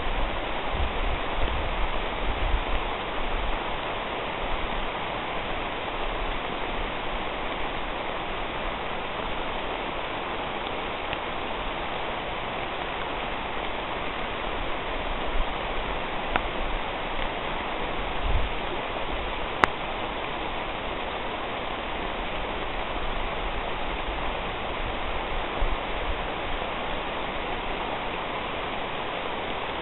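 Steady rain shower falling on the leaves of a horse chestnut canopy, an even hiss of many drops. A few low rumbles near the start and a single sharp click about two-thirds of the way through.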